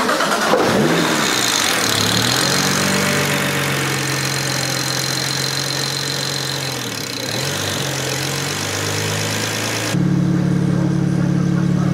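A BMW 335i's twin-turbo N54 inline-six is being driven on its stock map, on a test after limp mode that was blamed on a bad boost control valve. The engine note holds steady, dips and recovers about seven seconds in, then gives way abruptly, about ten seconds in, to a louder, steady engine drone.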